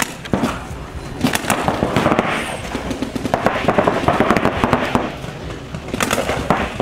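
Paintball markers firing rapid strings of shots, a fast crackle of sharp pops that comes in several runs.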